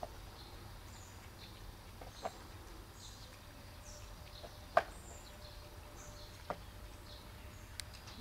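Small birds chirping in short, scattered calls over a steady low background rumble, with a few sharp clicks, the loudest about five seconds in.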